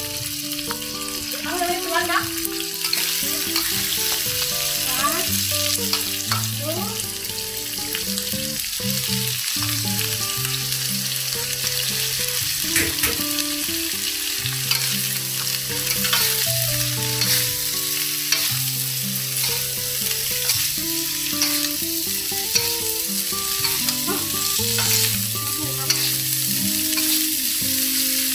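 Stir-fry sizzling in hot oil in a wok, with a metal spatula scraping and clicking against the pan as pork and shredded durian flowers are tossed.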